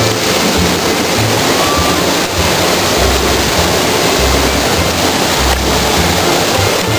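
Steady, loud rush of a waterfall, with background music's bass line playing over it.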